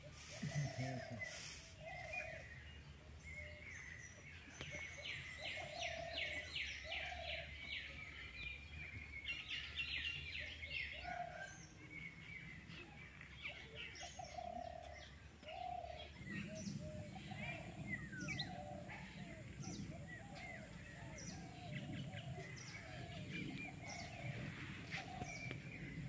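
Several birds chirping and calling, with a fast trill of rapid repeated notes about five seconds in and a lower short call repeated every second or two. A low steady rumble joins about two-thirds of the way through.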